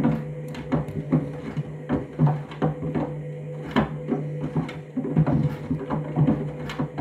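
Candy washing machine turning its drum in the main wash, with a steady motor hum under irregular knocking and clattering as trainers tumble against the drum.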